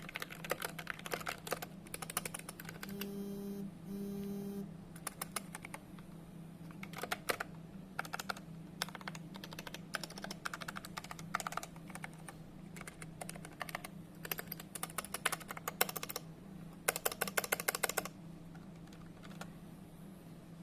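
Skyloong SK61 mechanical keyboard being typed on: irregular bursts of key clicks, with a fast run of keystrokes near the end. A steady low hum runs underneath, and a short low buzz sounds twice about three and four seconds in.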